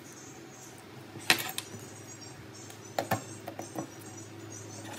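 A few sharp clicks and taps of small hard objects over a steady low hum: one loud click about a second in, then a cluster of lighter clicks around three seconds in.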